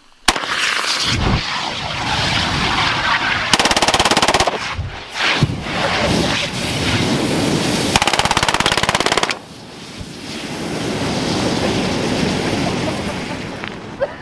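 HK MP7 submachine gun (4.6×30mm) firing at a propane tank, with two rapid full-auto bursts. The punctured tank's escaping propane rushes and burns, and after the firing stops about nine seconds in, the steady rush of the burning gas jet swells.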